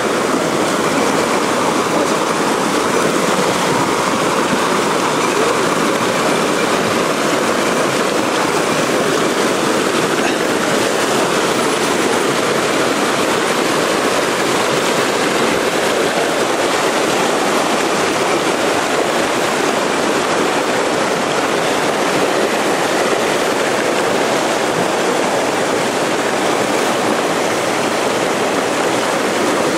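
Mountain stream rushing over rocks: a steady, unbroken wash of water.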